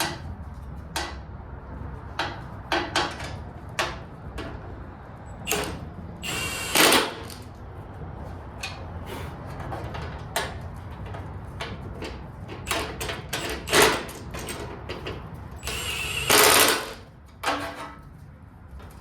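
Hand tools working bolts on a lawn mower: scattered metal clinks and knocks, with two longer bursts of rapid clicking, one about a third of the way in and one near the end.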